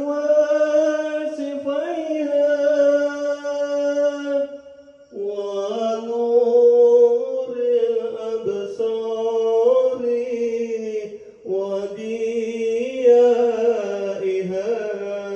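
A man singing a sholawat into a microphone, amplified through a newly installed powered mixer and 10-inch speakers as a sound check. Long, slowly wavering held notes in three phrases, with short breaths about five and eleven seconds in.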